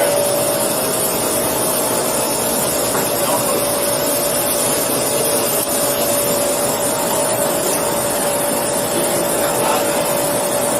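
Steady hiss with a constant mid-pitched hum running through it.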